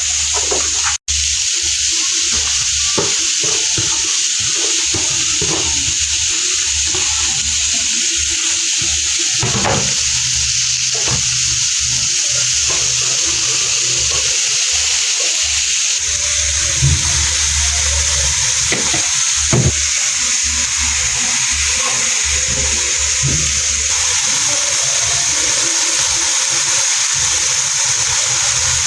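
Food sizzling as it fries in a pan, a steady hiss with a few short knocks scattered through it.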